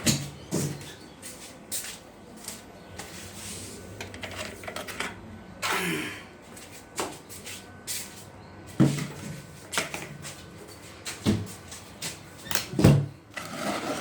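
Scattered knocks, clunks and scrapes of objects being handled and set down, about a dozen over the stretch, with a longer scraping rush about six seconds in and the loudest knocks near the end.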